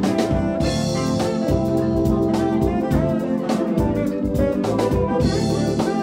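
Live band playing with drum kit, electric guitar and keyboards, a steady beat under held keyboard chords.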